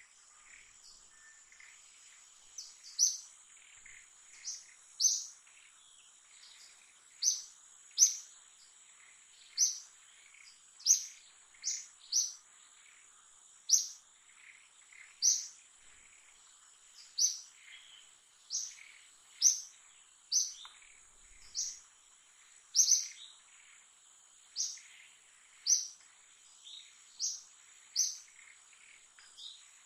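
A bird giving short, sharp, high chirps over and over, about one a second, starting a couple of seconds in. Behind it runs a steady high-pitched insect drone.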